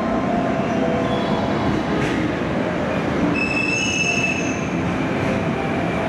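Train moving through the station, a steady rumble of wheels on rail, with a brief cluster of high-pitched wheel squeal about three seconds in.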